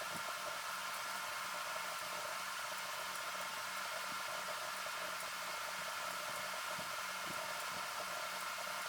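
Steady hiss with a faint constant hum and a few faint ticks.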